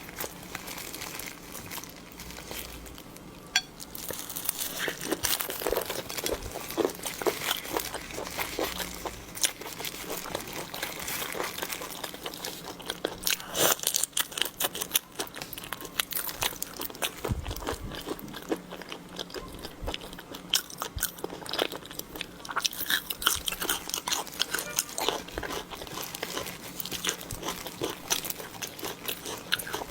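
Person eating shrimp, biting and chewing with many crisp crunches and crackles of shell throughout.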